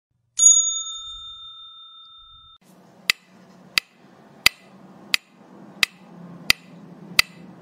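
Sound effect of a subscribe end-screen animation: a bright chime rings out about half a second in and fades over about two seconds, then a soft low hum with sharp, evenly spaced clicks, about three every two seconds.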